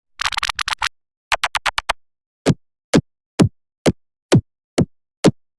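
Synthesized cartoon sound effect: two fast rattling runs of clicks, then seven short pops about twice a second, each dropping in pitch like a plop.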